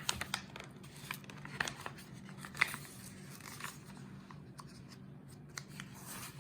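Paper rustling and crinkling with scattered light clicks and taps: the pages of a picture book being handled and turned.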